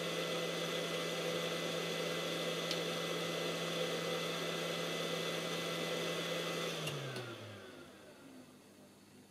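YiHua 853D hot air gun's fan running on in its cool-down cycle, a steady hum with a rush of air. About seven seconds in it winds down with a falling pitch and stops, as the nozzle has cooled and the station shuts the fan off.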